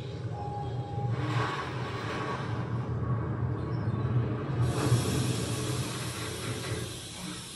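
Underwater sound effects from a projection-mapped dinner show's soundtrack: a steady low rumble with hiss, fitting the animated submarine scene. The hiss turns brighter about four and a half seconds in.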